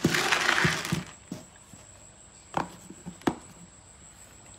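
Dry cat kibble poured into a stainless steel bowl, a brief rattling hiss in the first second. Then a few sharp clicks as the cat eats, kibble and teeth knocking against the bowl.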